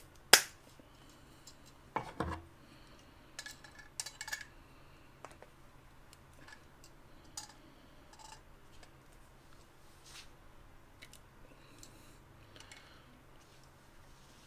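Pliers and brass pipe fittings clinking and clacking as the fittings are worked and lined up. One sharp loud clack comes right at the start, then a few clinks around two and four seconds in, then only faint ticks.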